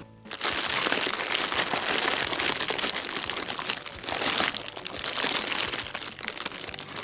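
Foil and plastic blind-bag packets crinkling and rustling as a hand rummages through a basket full of them: a dense run of small crackles that starts a moment in, with a brief lull about four seconds in.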